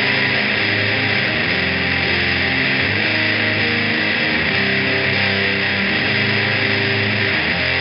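Electric guitar played through distortion effects pedals, a riff of heavy, sustained chords that change every second or so.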